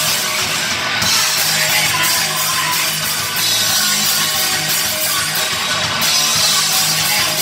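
Live rock band playing loudly: electric guitars and a drum kit.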